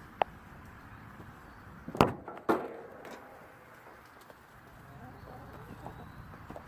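Treadle chicken feeder clanking sharply twice, about half a second apart, a couple of seconds in: a hen working the treadle so the lid swings open on its hinges. A faint click comes just before, and soft hen sounds follow.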